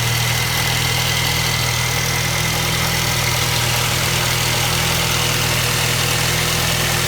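2012 Nissan Juke's engine idling steadily with a continuous rattle, which the mechanic presents as a bad or stretched timing chain.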